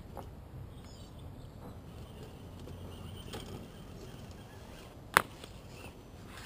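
Axial SCX10 RC crawler truck with a Holmes Hobbies Torquemaster 27T brushed motor, crawling slowly over brick edging, its drivetrain and tyres faint and low. A single sharp click or knock about five seconds in.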